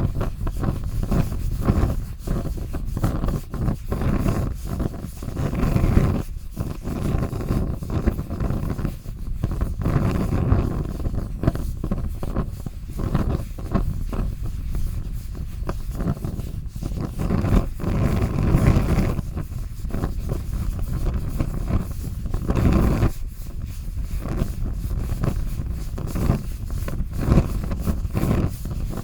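A fire burning: a steady low rumble with many small crackles and pops, swelling and easing every few seconds.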